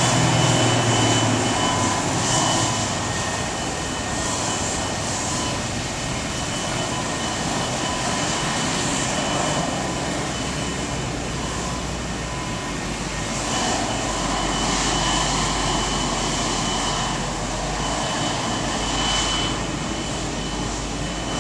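McDonnell Douglas MD-80's rear-mounted Pratt & Whitney JT8D jet engines running steadily as the airliner taxis: an even jet rush with a thin, steady high whine.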